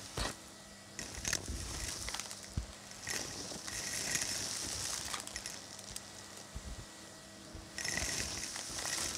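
Vacuum cleaner hose, with no tool fitted, sucking up a heap of fluff mixed with confetti, sequins and small hard bits: a suction hiss with crackles and clicks as the hard pieces rattle into the hose. The hiss swells for a couple of seconds in the middle and again near the end as the nozzle bites into the pile.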